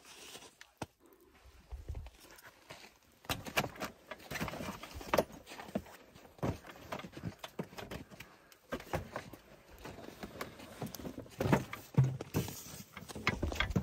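Irregular footsteps crunching in snow, with scattered knocks, clicks and rattles as someone climbs into the plastic body of a converted Barbie ride-on vehicle.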